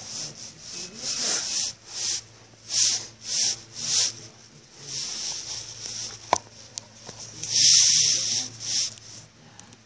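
Repeated scuffing and rubbing strokes against carpet, one every half second to a second, with a longer, louder scuff about eight seconds in and a single sharp click a little past six seconds.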